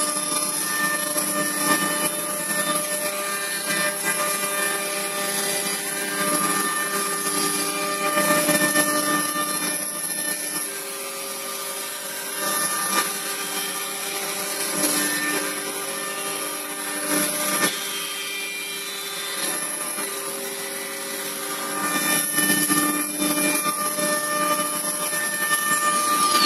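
CNC wood router spindle driving an angle-head cutter, machining slots into the side of a wooden block: a steady whine of several tones over a high hiss that swells and eases as the cutter works through the wood.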